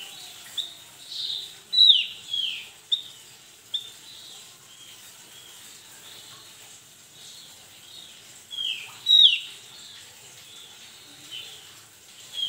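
Javan grey-throated white-eye (opior jawa) calling: a run of sharp, high notes, each sliding quickly downward. There are about six in the first four seconds, then a pause, then two more loud ones about nine seconds in.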